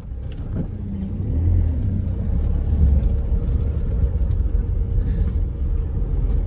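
Tata Harrier SUV heard from inside the cabin while driving slowly over a rough dirt trail: a steady low rumble of diesel engine, tyres and suspension with a few light knocks from the bumpy ground, building a little over the first couple of seconds.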